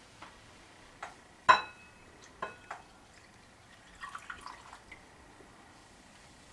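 A cup of water being added to yeast and sugar in a glass bowl: a few knocks and clinks of glassware, the loudest ringing briefly about a second and a half in, then a short run of light dripping around four seconds in.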